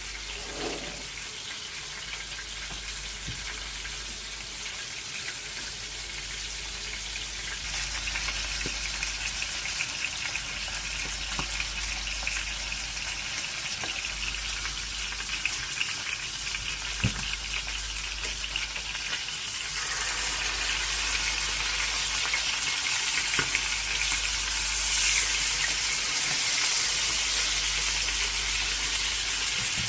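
Chicken pieces sizzling as they brown in a little hot oil in a frying pan, the sizzle growing louder about a quarter of the way in and again past the middle, with a few light clicks.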